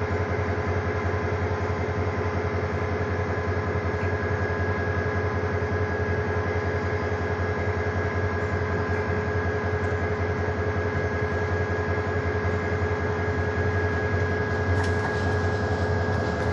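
Diesel locomotive of a passenger express approaching, its engine running with a steady low drone and a few held tones, getting slightly louder near the end.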